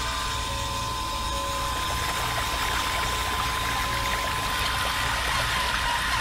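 Battery-powered mini water pump running with a steady whine, its stream of water splashing into a small model pond.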